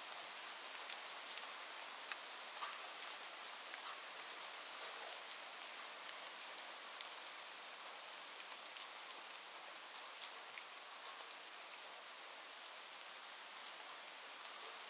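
Steady rain falling: an even hiss with scattered sharp ticks of drops.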